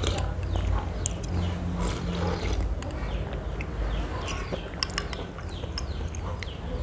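Close-up eating sounds: chewing and wet mouth noises while eating iced fruit cocktail with jelly, with a few sharp clinks of a metal spoon against a glass bowl, over a steady low hum.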